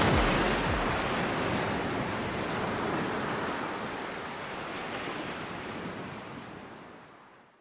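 A steady rushing noise with no tune or voice in it, fading gradually away to silence as the soundtrack ends.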